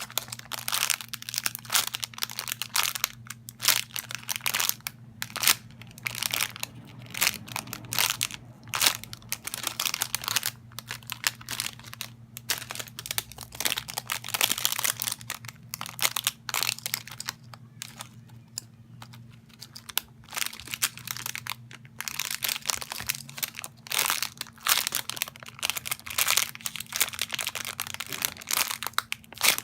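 Irregular crinkling and crackling of plastic as a squishy toy is handled, with a quieter stretch about two-thirds of the way through. A faint steady hum runs underneath.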